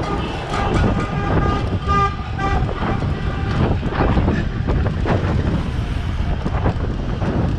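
Dense city traffic close around a bicycle: city bus and car engines running, with a car horn honking over the first two and a half seconds or so.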